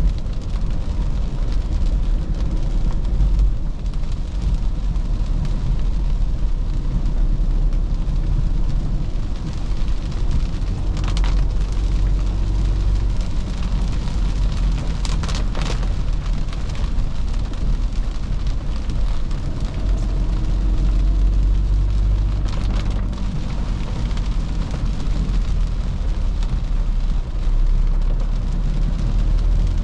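2013 Toyota Fortuner's 3.0-litre D-4D four-cylinder turbodiesel and tyres on a wet road, a steady low rumble with rain hiss over it while driving. A few short whooshes come through, about a third of the way in, around the middle and again past three quarters.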